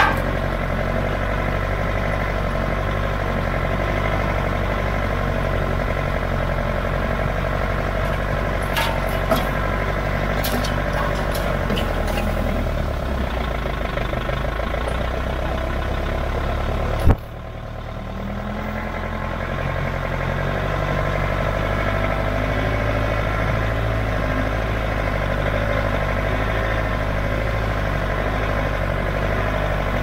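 Engine of the Lesnik-Master all-terrain vehicle running steadily under way. A sharp click just past the middle, after which the sound drops briefly and builds back up.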